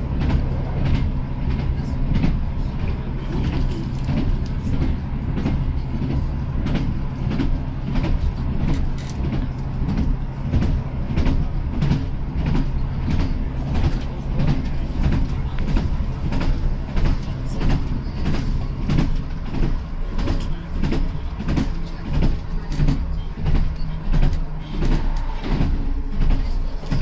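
Inside a ScotRail Class 158 diesel multiple unit on the move: a steady diesel engine hum, with frequent short clicks and knocks from the wheels running over the track.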